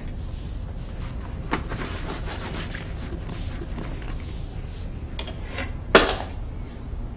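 Small clinks, rubbing and rustling of someone rummaging through things, with one sharp clack about six seconds in, the loudest sound.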